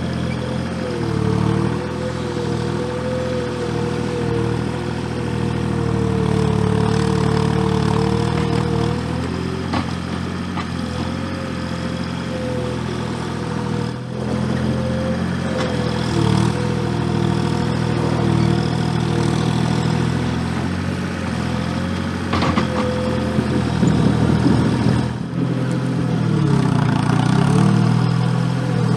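Gehl 4835 SXT skid steer's engine running under changing load, its note dipping and recovering several times, with a whine above it that wavers in pitch. There is a sharp knock a little over 22 seconds in, and the engine works harder near the end.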